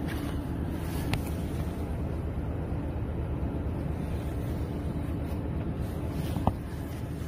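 Steady low rumble and hum of a standing electric train at a station platform, with a sharp click about six and a half seconds in, after which it drops slightly quieter.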